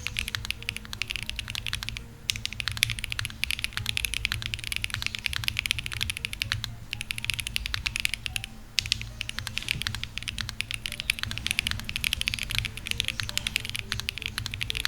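Typing sound test on a MonsGeek M1 V3 mechanical keyboard fitted with Akko x MonsGeek Green Fog heavy linear switches and double-shot PBT keycaps: a fast, continuous stream of keystrokes with a few brief pauses, over background music.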